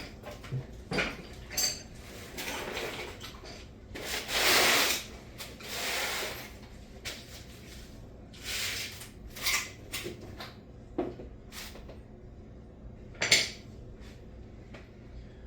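Hard tools and small objects clinking and clattering as they are handled and shifted while someone rummages for pliers. There are a couple of longer rustling sweeps about four to six seconds in, which are the loudest part, and sharp knocks near the end.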